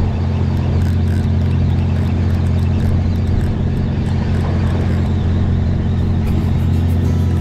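Fishing boat's engine running with a steady low hum that holds the same level.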